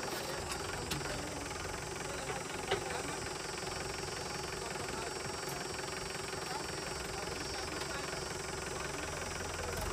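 Mahindra Yuvo tractor's diesel engine idling steadily, with a single sharp click a little under three seconds in.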